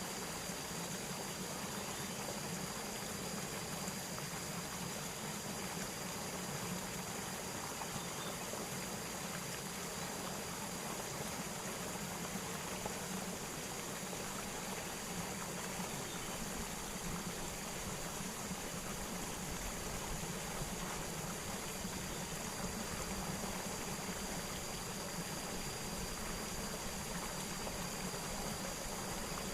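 Steady rush of flowing water with no breaks, a constant thin high-pitched tone above it.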